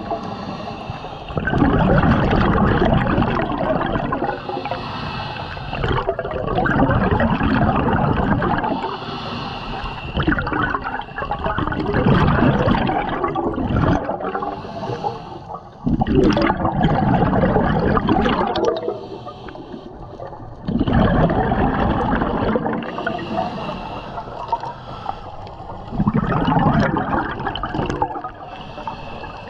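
Scuba regulator exhaust bubbles: a gurgling rush of bubbles about every four to five seconds as the diver breathes out, six times, with quieter inhalation gaps between.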